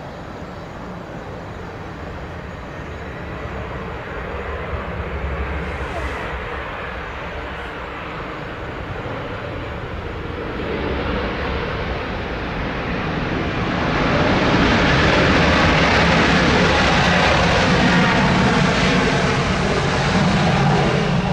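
KLM Cityhopper Embraer E-Jet's twin turbofan engines landing: a steady jet rush through approach and touchdown. It grows much louder about two-thirds of the way through, as the jet rolls out along the runway.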